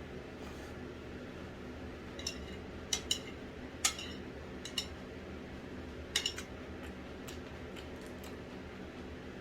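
Eating utensils clinking against dishes, about eight short sharp clinks between two and six and a half seconds in, over a steady low hum.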